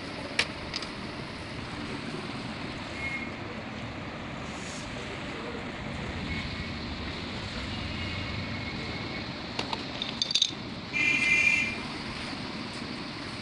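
Hard plastic clicks and rattles as the battery compartment cover of a toy domino train is handled and unclipped: one sharp click near the start and a quick cluster of clicks a few seconds before the end, over a steady hiss. A short, high-pitched squeak of about a second follows the clicks and is the loudest sound.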